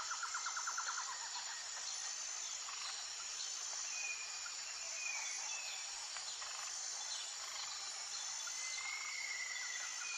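Outdoor nature ambience: a steady high insect drone with a repeating pulsed note, a rapid trill in the first second, and a few scattered bird chirps, with one longer whistled note near the end.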